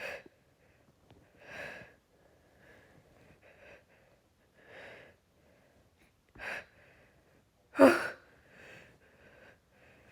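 A woman's soft, noisy breaths between sneezes in an allergy fit set off by pollen, with one short, sharp sneeze about eight seconds in.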